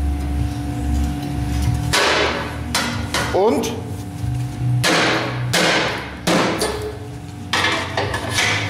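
Several sharp metal-on-metal knocks with a ringing tail as the steel ash door and hinge of a smoker firebox, built from an old gas cylinder, are struck and worked closed with a steel rod.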